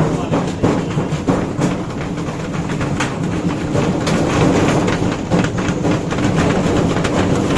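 Whirlpool top-load washing machine spinning with a very loud, continuous 'tak tak' knocking and clatter, the drum badly out of balance. The drum hangs down to the front on faulty suspension legs.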